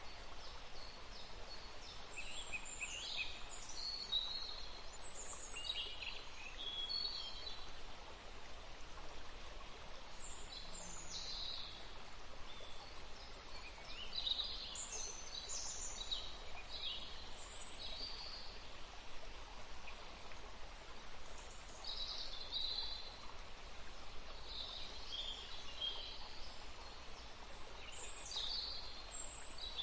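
Birds chirping and trilling in short, scattered calls over a steady outdoor background hiss.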